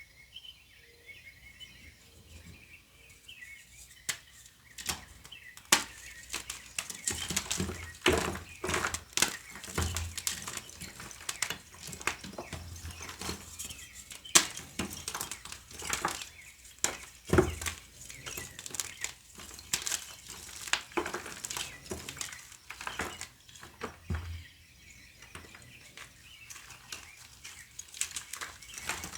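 Block of gym chalk being crushed and crumbled by hand: irregular dry crunches and crackles, starting about four seconds in and going on in uneven bursts. Small birds chirp faintly at the start.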